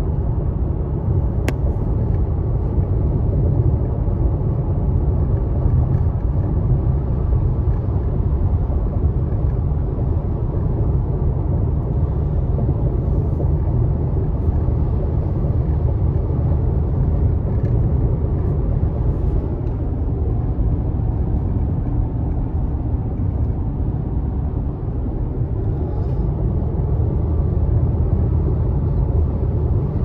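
Steady low rumble of a car driving on asphalt, heard from inside the cabin: tyre and engine noise.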